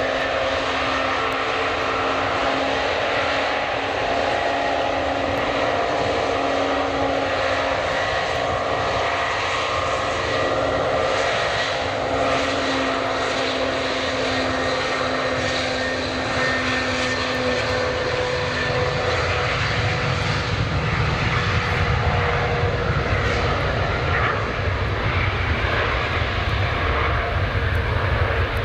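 Antonov AN-124's four turbofan engines at high power on the takeoff roll: a steady whine of several held tones over a jet rush. A deep low rumble builds through the last third.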